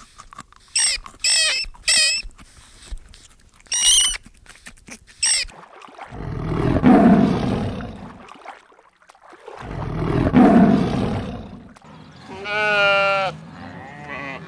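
A tiger roaring twice, each roar about two seconds long; these are the loudest sounds. Before them come several short, high-pitched squawking calls. Near the end a sheep gives one wavering bleat.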